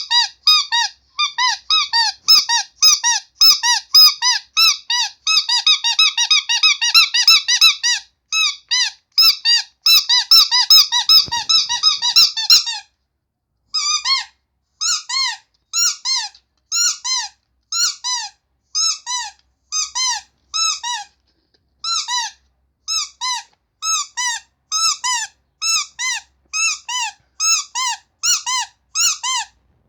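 Rubber carrot squeaky toy squeezed over and over, each squeak a short note that rises and falls in pitch. Quick squeezes of about three a second for the first dozen seconds, then after a brief pause slower squeaks of about one to two a second.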